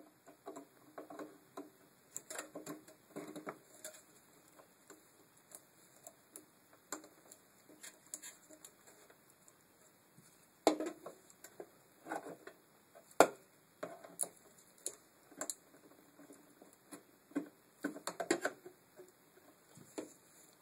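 Irregular clicks, taps and short rattles of a VW Passat B5 window regulator's glass clamps and cable rails being handled on the door's metal carrier panel, with two louder knocks a little past halfway.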